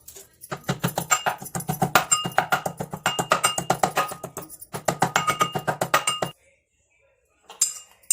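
Background music with a fast percussive beat and a repeating melodic line, starting abruptly and cutting off sharply after about six seconds.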